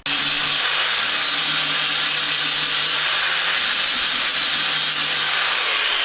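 Electric grinder running steadily while grinding the end of a broken tap flat, so that it can be used as a bottoming tap.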